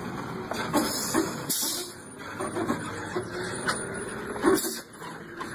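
Heavy truck's engine running under load as the truck struggles for grip on a rutted dirt track, with a few short, sharp noises over the steady rumble.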